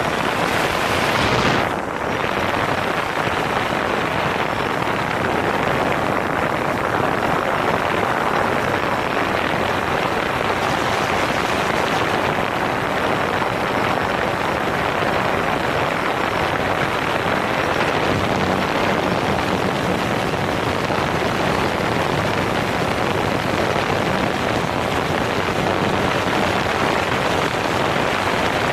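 Steady rushing noise of propeller downwash and wind buffeting the microphone of a Gear 360 camera mounted under a DJI Phantom 4 quadcopter in flight.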